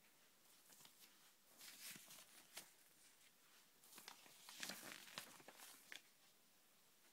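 Glossy paper magazine posters rustling faintly as they are shuffled and turned over by hand, in two short spells of crackling about two seconds in and again from about four seconds in.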